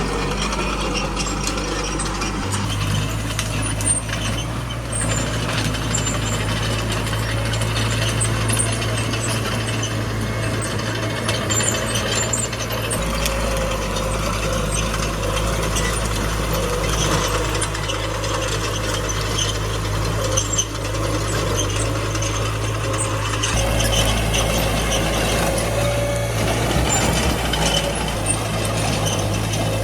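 Small crawler bulldozer working, its diesel engine running steadily under a constant metallic rattle and clank. The engine note shifts about two seconds in and again a few seconds before the end.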